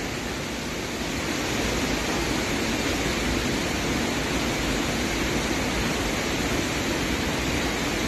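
Waterfall in a rocky canyon: steady rushing white water with no change in level.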